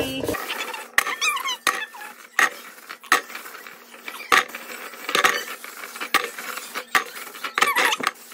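Small, hard green crab apples dropped one by one into a stainless steel bowl: irregular knocks and clinks on the metal, about a dozen, some followed by a short ring of the bowl.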